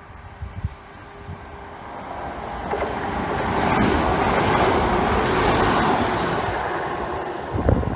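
ScotRail Class 170 Turbostar diesel multiple unit running into the platform close by: its engines and wheels on the rails grow louder, are loudest as the carriages pass, then ease off. A few low thumps near the end.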